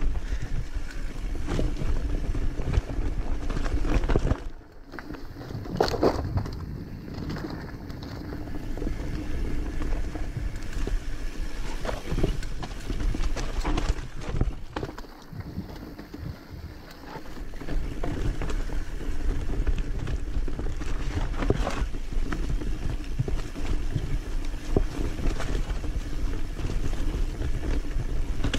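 Enduro motorcycle engine running over a rough dirt track, with many knocks and rattles. The engine sound drops off briefly about five seconds in and again around fifteen to seventeen seconds in.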